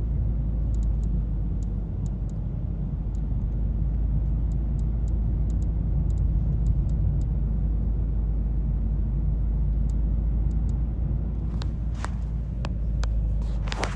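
Mazda 3 running with a steady low rumble and faint, irregular sharp clicks. Several louder clicks come near the end.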